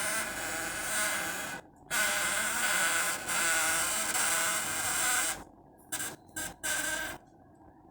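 Squeaking from the FY2425 humidifier filter of a Philips AC2729 air purifier as it turns: long high squeals, then a few short chirps near the end. The owner traced the squeak to the filter's plastic toothed gear ring after it had been washed in citric acid solution.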